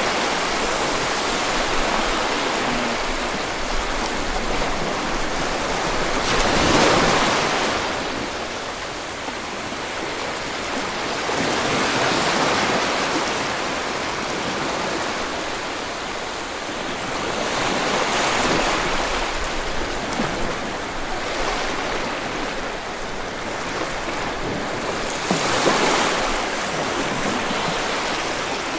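Steady rush of surf and shallow seawater on a low-tide flat, swelling every five or six seconds.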